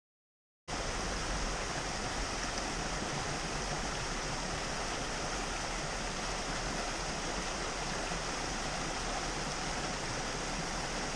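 Dead silence, then less than a second in a small waterfall and mountain stream cut in, running as a steady rush of water.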